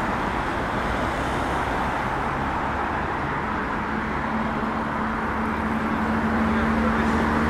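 Steady city road-traffic noise. About halfway in, the hum of a nearby vehicle engine comes in and grows a little louder toward the end.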